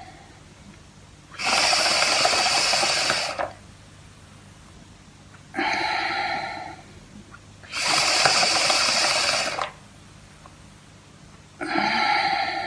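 Breathing in through a tube set in a bottle of vodka, air bubbling through the liquid for about two seconds at a time, twice. Shorter breaths come in between.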